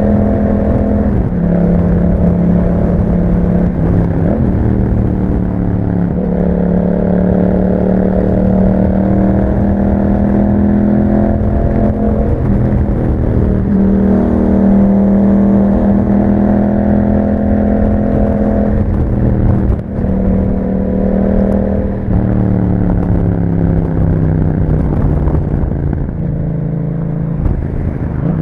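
2021 Yamaha MT-07's 689 cc parallel-twin engine through an Akrapovic exhaust on the move. The engine note climbs and falls over and over as the bike accelerates and changes gear, with a short dip in level about two-thirds of the way through.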